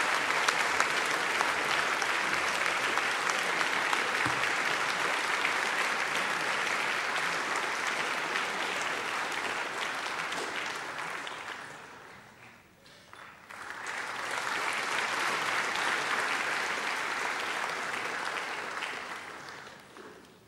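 Audience applauding: steady clapping that dies away about twelve seconds in, swells up again a second or so later, and fades out near the end.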